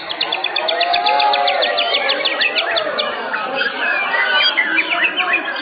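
White-rumped shama (murai batu) singing: a fast run of repeated sharp notes, about seven a second, for roughly the first three seconds, then varied whistled phrases.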